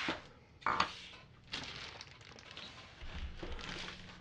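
Plastic wrapping rustling and crinkling while a bagged coffee machine is handled and set on a wooden desk, with one sharp knock just under a second in and a few softer bumps later.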